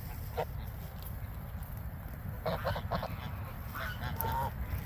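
Geese honking in short bursts of calls, a lone call near the start and two clusters later on, over a steady low rumble.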